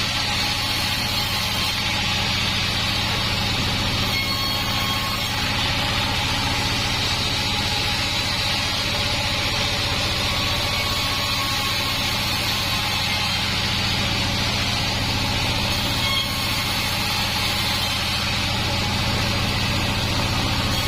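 Band sawmill machinery running steadily, a constant low hum under a broad hiss with no break.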